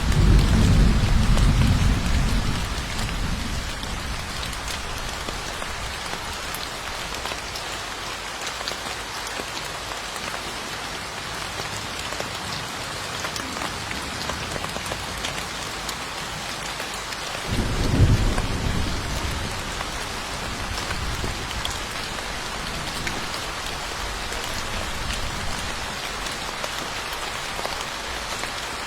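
Steady heavy rain falling, with a low rumble of thunder dying away in the first few seconds and another short rumble of thunder about two-thirds of the way through.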